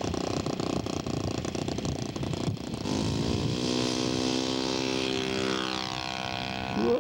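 Radio-controlled scale Stuka model's engine at full power. The first three seconds are a rough engine noise; then a steady, high-revving engine tone takes over, and its pitch falls in the last seconds as the plane goes past.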